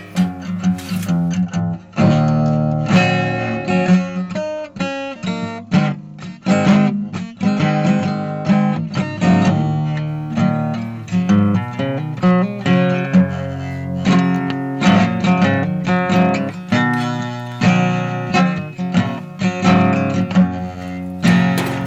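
Background music: acoustic guitar playing, plucked and strummed notes.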